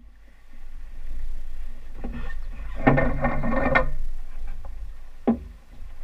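Steady low rumble of a motorboat under way, with a burst of rustling and knocking about three seconds in and a single sharp knock near the end.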